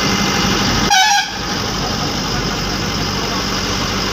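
Steady engine and road noise inside a moving bus's cab, with one short, loud horn blast about a second in, a wavering tone lasting about a third of a second.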